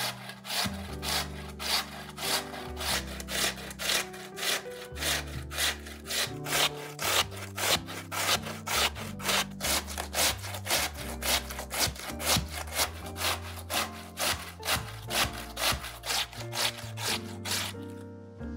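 Peeled raw potato grated on a stainless steel box grater: rhythmic rasping strokes, about two a second, over background music.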